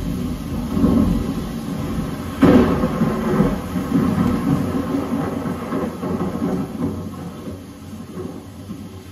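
Rolling thunder rumbling, with a sharper, louder clap about two and a half seconds in, then dying away toward the end.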